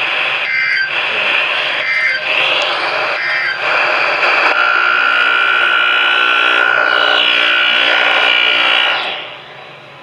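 Eton emergency weather radio's speaker giving out loud hissing static, broken three times in the first few seconds, then a steady hiss with a held tone underneath; it cuts off about nine seconds in.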